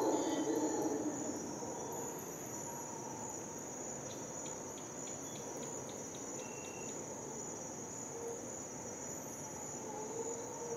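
Rainforest insects before dawn: a steady high-pitched drone that runs unbroken. About four seconds in, a quick run of around eight ticks, and a low call fades away at the start and comes back faintly near the end.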